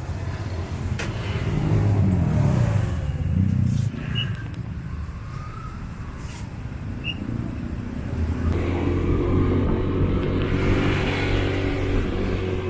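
Motor vehicle engines on the road: an engine revs up and eases off a couple of seconds in, then a steadier engine drone builds from about eight seconds.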